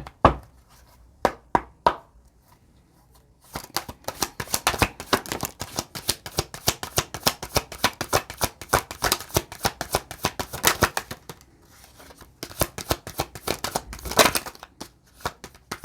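A deck of oracle cards being shuffled by hand: a few single taps at first, then two long runs of rapid card flicks with a short pause between them.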